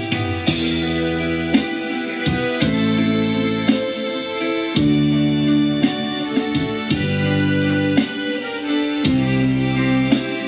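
Instrumental music played through loudspeakers under demonstration: held electronic keyboard chords that change about once a second over a steady beat.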